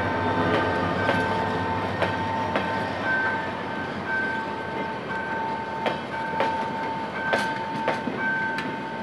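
Passenger coaches rolling past at low speed as the train pulls away, wheels knocking and clicking irregularly over rail joints. A steady high-pitched ringing tone runs over the rumble. A low engine hum fades out in the first couple of seconds.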